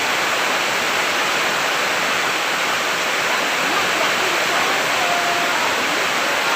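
Heavy tropical downpour: a dense, steady hiss of rain.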